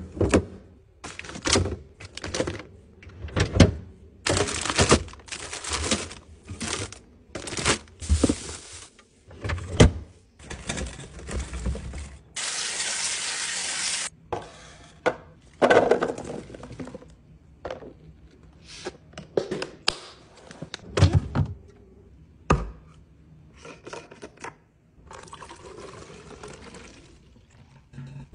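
Kitchen restocking sounds: a string of knocks, clicks and rustles as containers, lids and packaging are handled and set down. About halfway through comes a steady pouring rush that lasts about two seconds.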